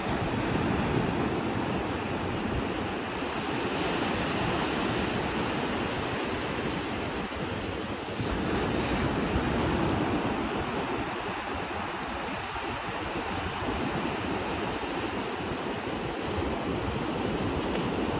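Ocean surf: waves breaking and washing in a steady rush that swells and eases every few seconds.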